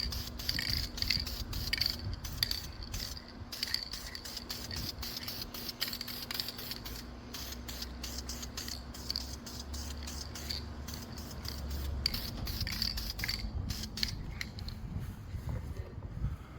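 Aerosol can of VHT header paint spraying in a run of short, uneven bursts, with wind rumbling on the microphone.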